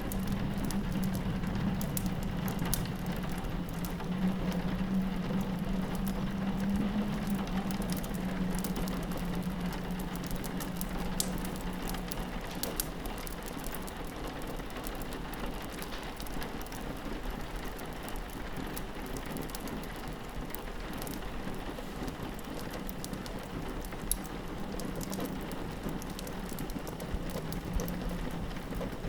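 Rain pattering on a window blended with a crackling wood fire: a steady hiss of rain dotted with many sharp crackles and pops. Under it runs a low steady drone of wind, stronger at the start and again near the end.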